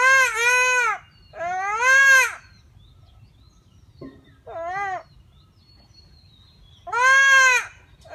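Young goat kid bleating in distress while being castrated by hand. There are two long, loud bleats at the start, a short quieter one about halfway through, and another long bleat near the end.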